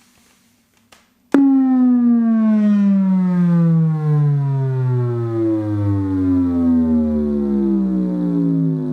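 Bass sweep test tone played through an electric unicycle's built-in speaker, starting suddenly about a second in and falling steadily in pitch.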